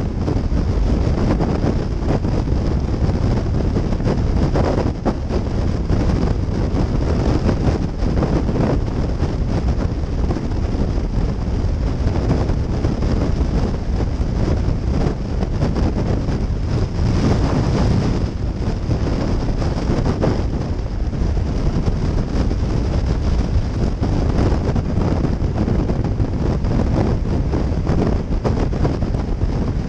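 Wind rushing over a helmet-mounted camera's microphone on a motorcycle at highway speed, steady and loud, with engine and road noise mixed in underneath.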